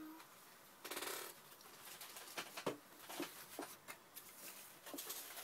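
Paper scraps rustling and shuffling in a wooden tray, with scattered light clicks and taps as a hand sorts through them; a short scraping rustle about a second in.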